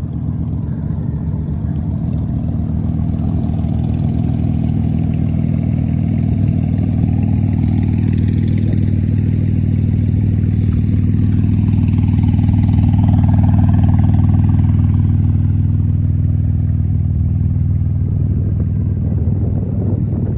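Car engine running steadily while driving, a low drone with road noise. It grows gradually louder toward the middle and eases off near the end.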